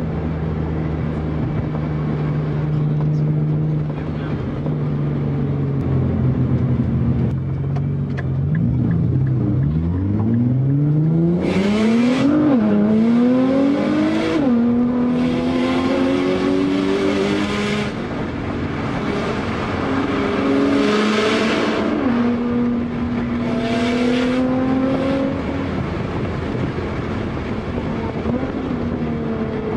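Mazda RX-7's rotary engine heard from inside the cabin under hard driving. It drones steadily at first, then about ten seconds in revs up hard, rising in pitch with sharp drops at two quick upshifts. From there it runs at high revs with a loud rasp that eases off and comes back several times as the throttle is lifted and reapplied.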